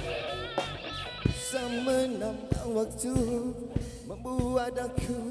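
Live blues-rock band playing through a PA: a drum kit keeps a steady beat under bass and guitars, with a lead melody that bends and wavers in pitch.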